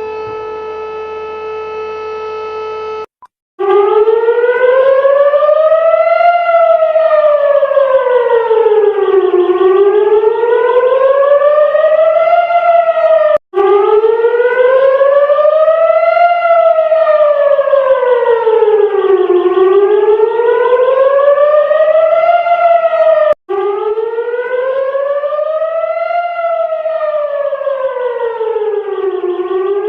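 A civil-defence warning siren of the kind Israel sounds, wailing slowly up and down about every six seconds, cutting out for an instant twice and restarting. Before it, a steady electronic alert tone holds for about three seconds and stops abruptly.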